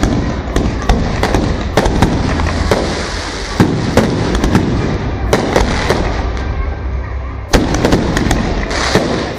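Aerial fireworks going off in rapid succession: many sharp bangs and crackles, each trailing off in a rumbling echo, over a steady low rumble, with a heavy cluster of bangs about three-quarters of the way through.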